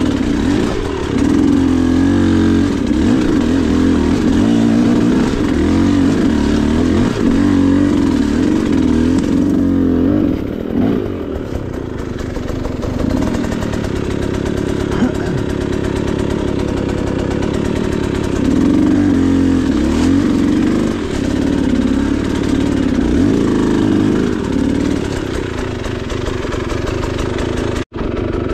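Dirt bike engine ridden slowly, the throttle opening and closing so the pitch keeps rising and falling, with a softer, backed-off stretch about ten seconds in. The sound cuts out for an instant near the end.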